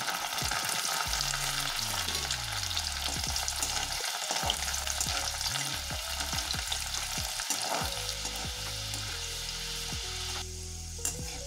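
Soaked chana dal deep-frying in hot oil in a kadai: a dense crackling sizzle, with a slotted spoon stirring through it. The sizzle eases a little near the end.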